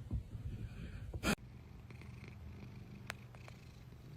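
A domestic cat purring steadily, a low even rumble, with a short burst of noise about a second in and a few faint clicks later.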